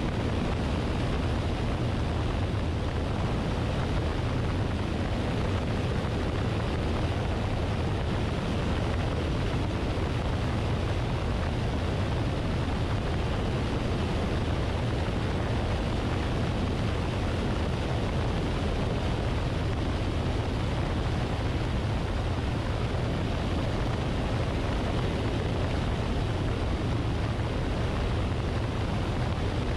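Luscombe light aircraft in level flight, heard from a wing-mounted camera: the steady low drone of its piston engine under a constant rush of airflow over the microphone.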